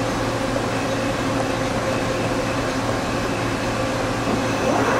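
Cincinnati-Milacron 18C CNC turning center running with a steady mechanical hum, its drives and pumps on, with a short rising whine near the end.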